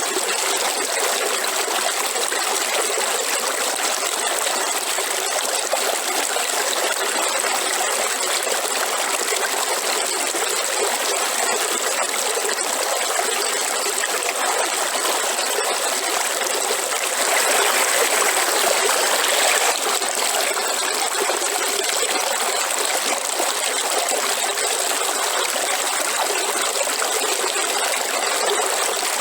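Waterfall: water falling and running in a steady rush, growing briefly louder for a couple of seconds about two-thirds of the way through.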